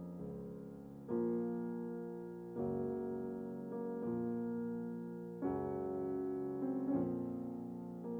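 Background music: slow, gentle piano, with a new chord struck every second or two that is left to ring and fade.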